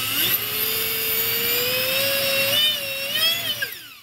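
Hand-held electric ducted fan (EDF) running on the bench, giving a high whine. The pitch jumps up as the throttle is raised about a third of a second in, climbs slowly, wavers near three seconds, then falls as the fan is throttled back and spins down near the end. It doesn't sound very good: the fan is still out of balance with the balancing setting at the 3 o'clock position.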